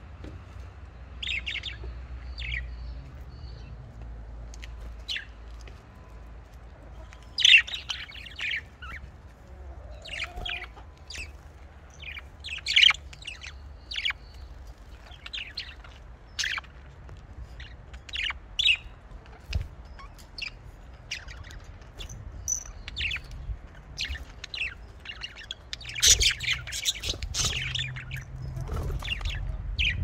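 Budgerigars chirping: a steady run of short, high chirps and warbles, busiest in a flurry near the end.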